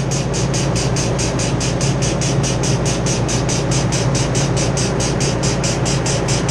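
Refrigeration equipment running steadily: a low hum under a rushing noise, with a fast, even pulsing hiss at about six pulses a second.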